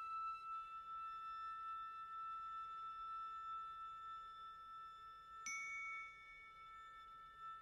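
Glockenspiel notes ringing softly and slowly fading, with one new mallet stroke about five and a half seconds in that sounds a higher note, which then rings on.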